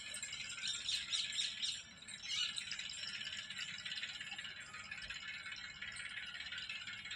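Continuous high-pitched chattering and chirping of many small birds, with busier bursts now and then.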